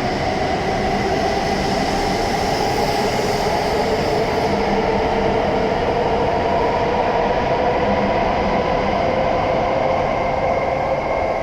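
E7-series Shinkansen train pulling out of the station: a steady rumble of wheels on rail with a whine that slowly rises in pitch as it picks up speed, beginning to fade right at the end.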